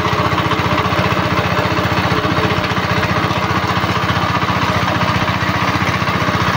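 Single-cylinder 'dompeng' diesel engine running steadily, driving a chopper mill that grinds goat manure, with a fast, even beat.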